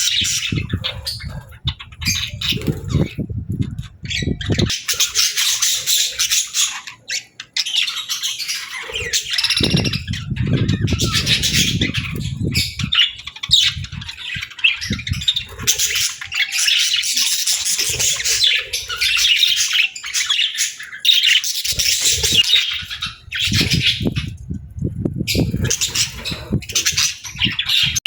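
Pet budgerigar chirping and chattering almost without pause in quick, busy high notes, with squawks among them. A low rustling noise comes and goes under it a few times.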